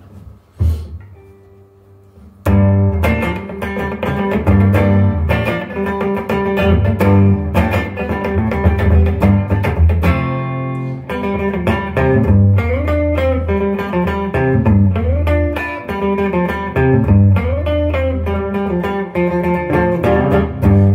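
Live band's instrumental song intro on electric guitar and bass guitar, starting in full about two and a half seconds in after a quiet opening with a single knock.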